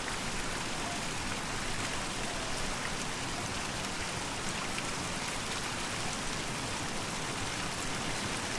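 Steady rush and splash of a thin mountain waterfall spilling down rock faces.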